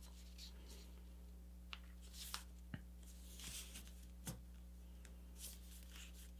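Faint rustling and crackling of a sheet of paper being folded and creased by hand, with a few soft ticks as the paper is pressed down, over a low steady hum.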